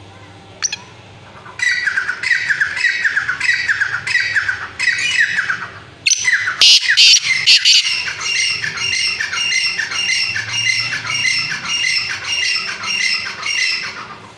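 Grey francolin calling in fast repeated harsh notes, starting about a second and a half in at roughly three notes a second. The calls get louder and harsher about six seconds in, then carry on as an even string of calls until just before the end.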